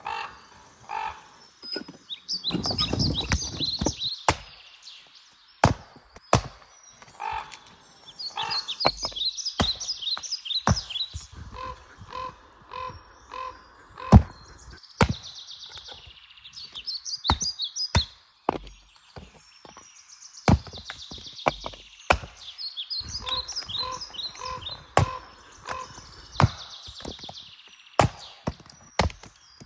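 Firewood rounds being chopped: sharp, irregular blows of a chopping tool striking and splitting wood, each a short crack or thunk.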